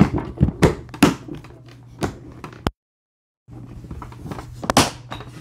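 Hard plastic gun case being shut: the lid thunks down onto the packed gear and the latches snap closed in a string of sharp clicks and knocks. A short gap of dead silence falls in the middle, then a few more sharp clicks near the end.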